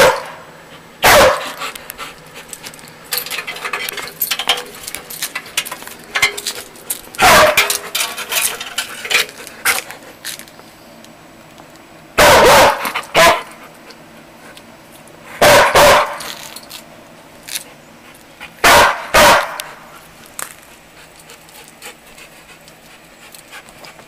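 Black poodle barking in short, loud barks, several of them in quick pairs a few seconds apart, with softer sounds in between. The dog is barking up at birds nesting in the trailer hitch.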